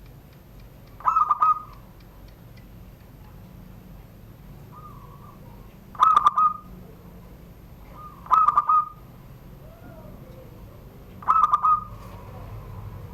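Zebra dove (perkutut) singing its cooing song in the style its keeper calls "surung gdor": four short phrases of quick, high cooing notes, each about half a second long, a few seconds apart.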